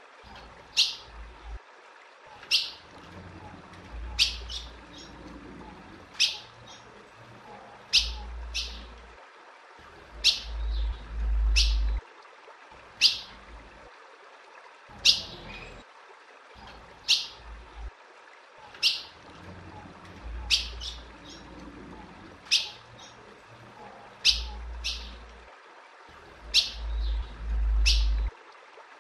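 Female ultramarine grosbeak (azulão) calling: short, sharp, falling chip calls, about one every second or two and often in pairs. These are the female's contact calls, played to stir male azulões. Patches of low rumble come and go behind them.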